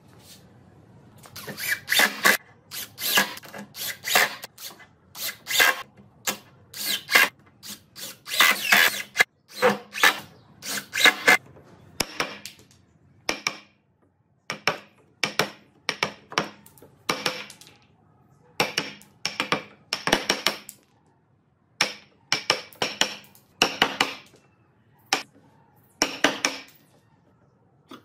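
Wood chisel being struck over and over, chopping a row of mortises into a wooden rail: a run of sharp knocks, about one to two a second, with short pauses between groups.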